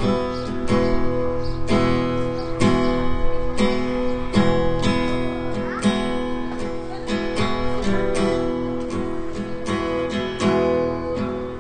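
Acoustic guitar strummed in slow, even strokes, a little over one a second, ringing chords that make up the instrumental introduction of a slow song.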